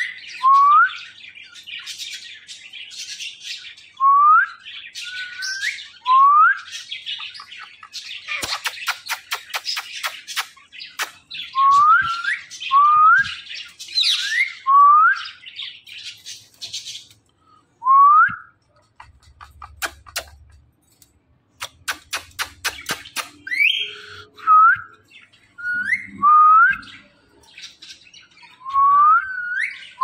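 Indian ringneck parakeets calling: short whistles that swoop upward, repeated every second or two, with stretches of scratchy chattering in the middle and a quick run of sharp clicks about two-thirds of the way through.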